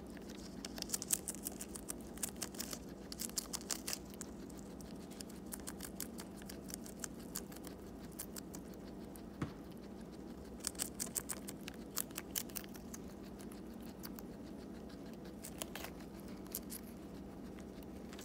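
Guinea pig chewing crisp romaine lettuce: quick runs of crunchy bites that come in several bursts with pauses between them.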